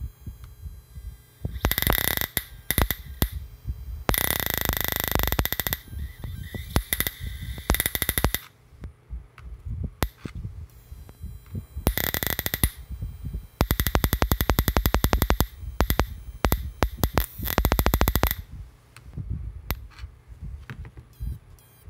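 Springer Magrath Hot Shot stock prod firing in several bursts, some a second long and one about five seconds, its high-voltage spark snapping rapidly across to a screwdriver held at the tip electrode. Each burst is a fast crackling buzz with a high-pitched whine through it.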